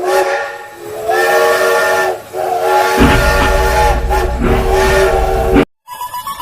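Train whistle sounding a chord of several steady tones over hiss, in about four long blasts, with a low rumble joining about three seconds in. It cuts off suddenly near the end.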